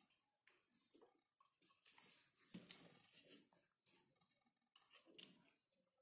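Near silence, with faint scattered clicks and rustles of thin wire being twisted by hand onto a battery terminal.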